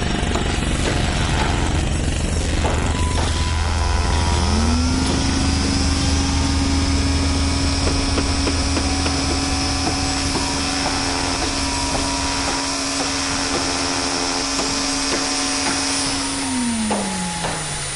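Construction-site ambience: the low rumble of heavy machinery, with scattered knocks and clatter. About four seconds in, a power tool's motor spins up to a steady whine, runs, and winds down near the end.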